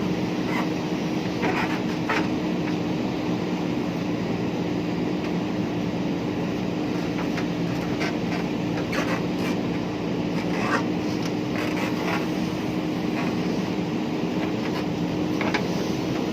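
Diesel engine of a JCB 3DX backhoe loader running at a steady speed, with scattered faint clanks and scrapes from the digging work.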